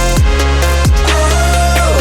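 Background electronic music with a heavy bass and deep kick drums that drop in pitch, and a synth line gliding about in the second half that bends down at the end.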